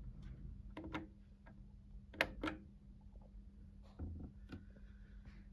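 Sony PS-X75 turntable making a faint steady hum with a handful of soft clicks and light knocks and no music. The two loudest knocks come a quarter second apart about two seconds in.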